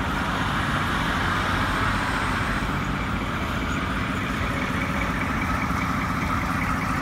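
Ford C-series fire truck's diesel engine idling steadily, with water rushing through a hose from a fire hydrant to fill the truck's tank.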